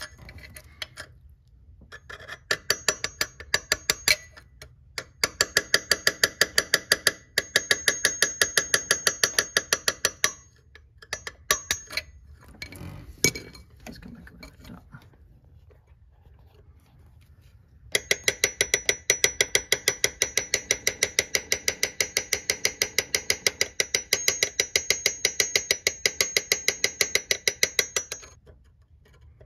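Rapid light metal-on-metal taps on a punch set against the stub of a snapped alternator tensioning bolt, each tap ringing briefly, about five a second, in runs of a few seconds with pauses and one long run of about ten seconds in the second half; the light tapping slowly works the broken bolt round and out of its threads.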